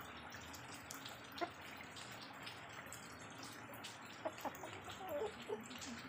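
Steady trickling water with scattered drips. A few short, soft calls come in about four seconds in.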